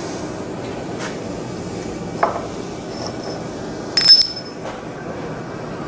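Steel on the anvil: a light knock about two seconds in, then a louder metallic clang about four seconds in that rings on with a high, clear tone, over a steady background noise.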